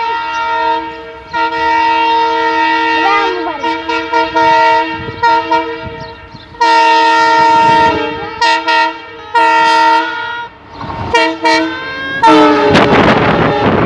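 WDM3A diesel locomotive's horn sounding in several long blasts, then a few short ones. Near the end the train's running noise swells loudly as the locomotive passes, and the horn's pitch falls.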